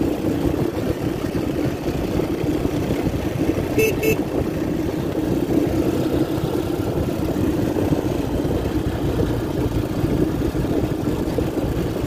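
A 250cc Lida ATV's engine running steadily under way. About four seconds in there are two short high beeps.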